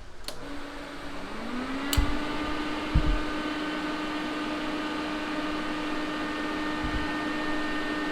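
An electric motor or fan is switched on with a click and spins up, rising in pitch over about a second, to a steady hum. A few dull knocks sound over it.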